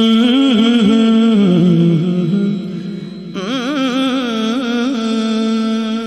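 A man's voice singing a wordless alaap: long held notes with wavering ornamental turns, dropping lower near the middle, and a new phrase starting about three seconds in.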